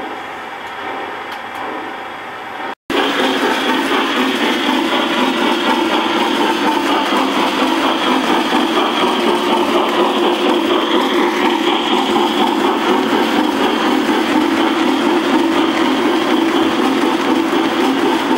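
O gauge three-rail model train running past close by: metal wheels of the locomotive, tender and gondolas rolling on the track with a steady whirring rumble. There is a brief break about three seconds in, after which it is louder.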